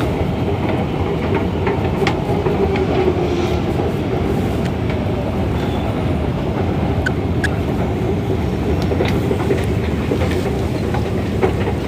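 London Underground Jubilee line train running, a steady loud rumble with scattered clicks from the wheels and track.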